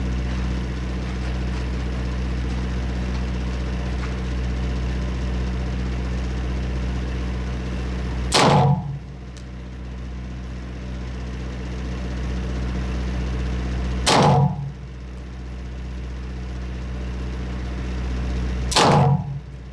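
Three single gunshots at a shooting range, about six and then five seconds apart, over a steady low hum; the background dips after each shot and slowly comes back up.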